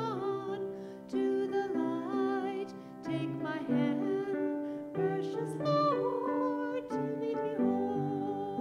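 A slow hymn-style song on grand piano, with a sung melody that wavers and glides between long held notes over steady piano chords.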